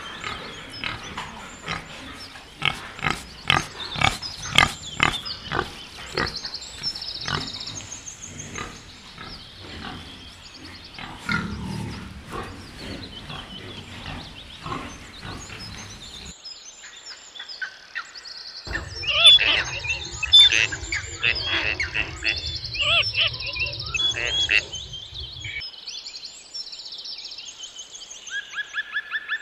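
A pig grunting in a quick run of short grunts, later followed by high chirping bird calls over a steady background chirring.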